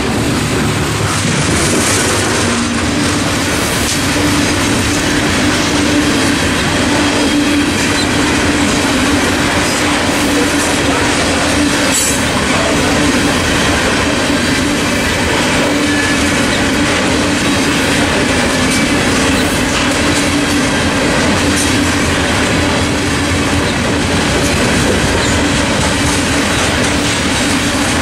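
Coal train of hopper cars rolling steadily past the crossing, its wheels rumbling and clacking over the rail joints. The crossing's General Signals Type 3 electronic bell rings on top of the wheel noise.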